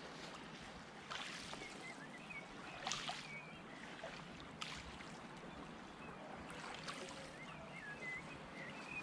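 Small waves lapping and trickling at a loch shoreline, with a few short light knocks and faint high chirps in two brief clusters.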